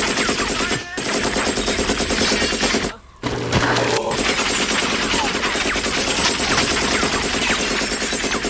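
Sustained automatic machine-gun fire, a fast, dense rattle of shots that breaks off briefly about a second in and again about three seconds in.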